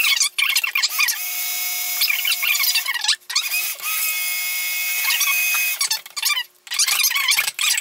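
Braun stick blender running in hot-process soap batter in bursts. It stops briefly about three times, with steady stretches of motor whir between the stops.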